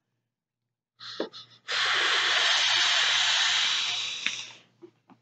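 A long, loud breathy hiss of about three seconds as a vape is drawn on hard, after a couple of short breaths about a second in.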